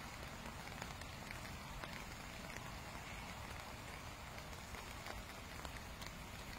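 Steady rain falling on the lake and bank, a continuous hiss dotted with sharp ticks of individual drops, over a low fluttering rumble of wind on the microphone.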